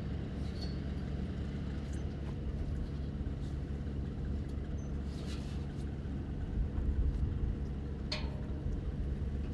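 A large engine running steadily at idle, a low hum with a few light clicks, the clearest about eight seconds in.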